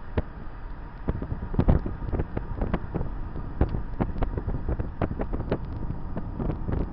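Road noise and a steady low rumble inside a moving vehicle, with many irregular sharp knocks and rattles throughout.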